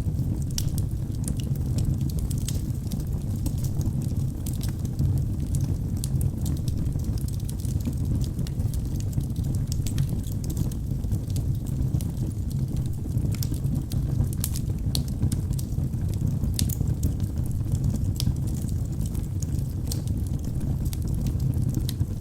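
Wood fire burning in a fireplace: a steady low rush of flames with frequent small crackles and pops scattered irregularly throughout.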